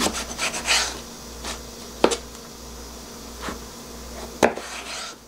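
Kitchen knife slicing eggplant lengthwise into thin strips on a wooden cutting board, the blade knocking on the board as each slice comes through. The sharpest knocks come about two seconds in and again about four and a half seconds in.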